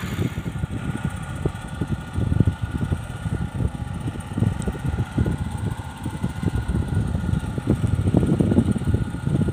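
A small engine on board a wooden fishing boat running steadily, its hum overlaid with dense, irregular low thumps.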